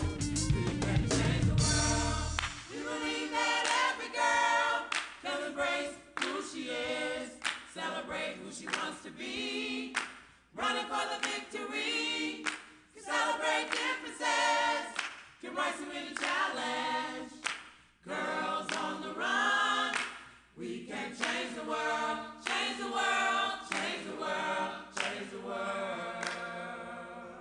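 Gospel choir of mixed men's and women's voices singing in phrases. A low bass accompaniment under the voices drops away about two and a half seconds in, leaving the voices nearly on their own.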